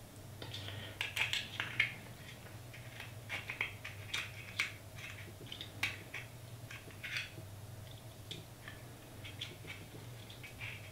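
Metal calipers being slid and set on the thin wall of a plastic 3D-printed test cube to measure it: faint, irregular small clicks and scrapes, over a steady low hum.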